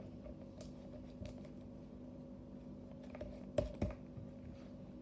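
Scattered light clicks and taps, with two louder knocks close together about three and a half seconds in, over a steady low hum.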